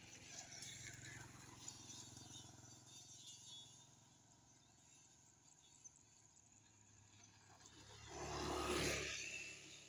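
Motor scooter passing close by: its engine grows louder as it approaches, is loudest about eight and a half seconds in, and fades quickly as it goes past.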